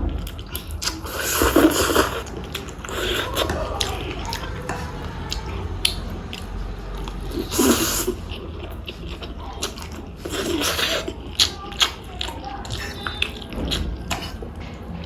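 Close-miked eating of vegetable chow mein: chewing with wet mouth clicks and smacks, broken by three louder noisy bursts of eating noise, near the start, about halfway and about two-thirds through.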